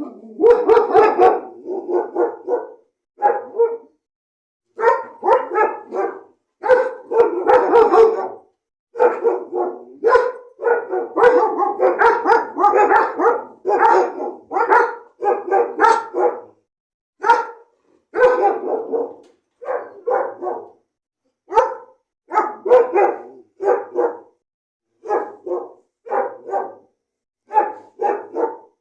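Dog barking repeatedly, in bouts of several quick barks separated by short pauses.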